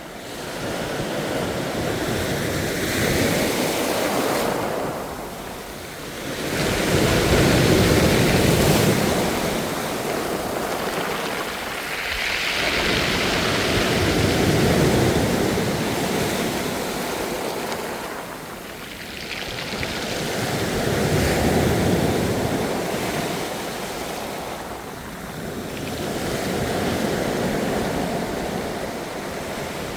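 Ocean surf: waves breaking and washing in, swelling and falling about every six seconds.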